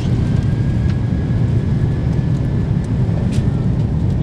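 Cabin noise of an Airbus A330-200 taxiing: a steady low rumble from the engines and airflow, with a faint high whine that rises slightly.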